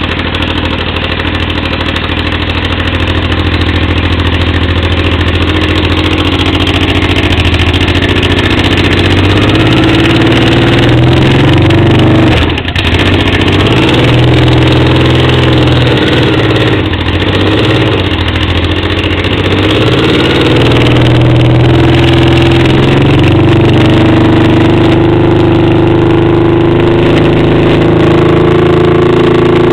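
Honda Africa Twin XRV750's V-twin engine running with no silencer fitted, loud. It idles steadily at first, then the engine speed rises and is held higher, dipping briefly a few times in the middle.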